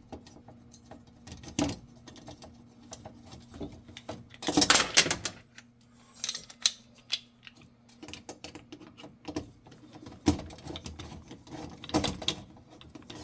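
Scattered small metal clicks and taps as the screws and nut holding a gas oven igniter are worked loose by hand. A louder rattling clatter comes about four and a half seconds in.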